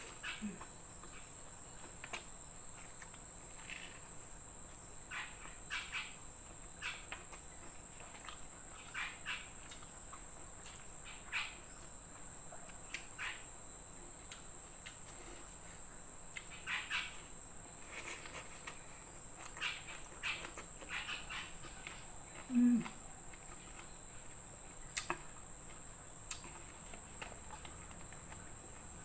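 Close-up eating sounds: irregular soft mouth clicks and chewing smacks, with one louder low knock about two-thirds of the way through. A steady high chirring of crickets runs underneath.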